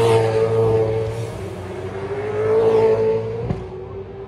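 Supercars V8 race cars passing at speed on a street circuit, one after another. The engine note swells as each car goes by, once at the start and again about three seconds in.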